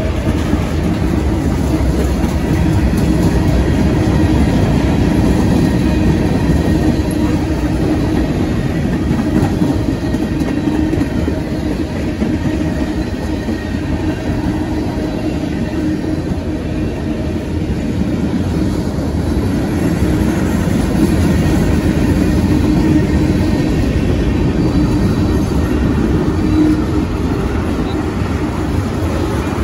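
Freight train cars rolling past, with a steady, continuous noise of steel wheels on rail.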